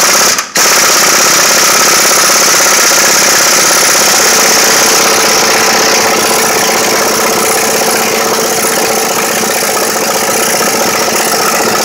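Impact wrench hammering continuously on the forcing screw of a gear puller, driving it against the engine's timing gear to pull the gear off. There is a brief break about half a second in.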